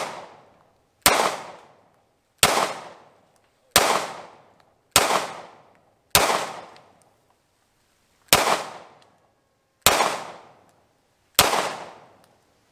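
Eight shots from a 9mm Springfield XDE pistol, fired one at a time about every second and a half, with a longer pause after the fifth. Each shot has a short echo trailing off behind it.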